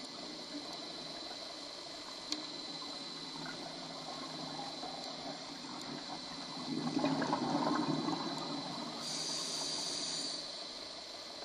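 Scuba diver's breathing through a regulator, heard underwater: a rough gurgle of exhaled bubbles about seven seconds in, then a short high hiss of an inhaled breath. A steady faint hiss runs underneath, with a single sharp click about two seconds in.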